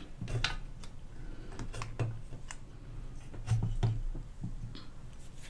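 Scattered light clicks and scrapes of a new 6SA7GT mixer valve being handled and pushed into its octal socket on a valve-radio chassis.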